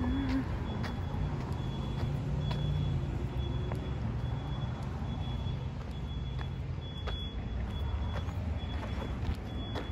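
Low, steady rumble of a motor vehicle engine running, with a faint high beep repeating evenly a bit more than once a second and a few light footsteps.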